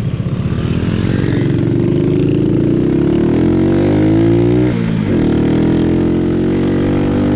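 Honda C90's single-cylinder four-stroke engine pulling under load, its pitch rising steadily, then dropping sharply about four and a half seconds in as it changes up a gear, and climbing again.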